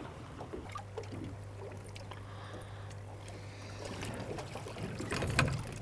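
Quiet sound aboard a fishing boat trolling slowly, with a low steady hum from about a second in to about four seconds and a few light clicks near the end.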